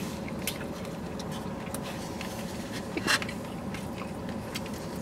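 Eating sounds: chewing, with small clicks and scrapes of a plastic fork and one louder click about three seconds in, over a steady faint hum inside a car's cabin.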